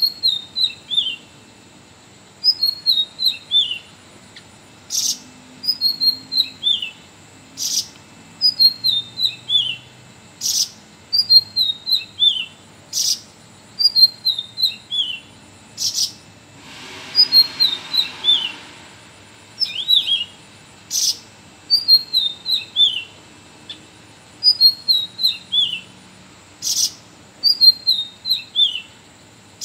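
Sooty-headed bulbul (cucak rawis) singing, repeating a short phrase of about four quick notes stepping down in pitch, roughly every two to three seconds. Sharp clicks fall between some phrases, and a brief hiss comes about halfway through.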